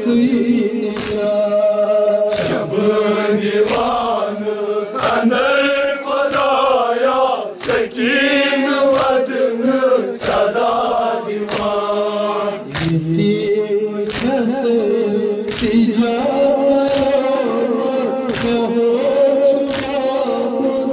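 Men's voices chanting a Shia mourning lament (noha) together, with the rhythmic slaps of hands beating on chests (matam) about once a second.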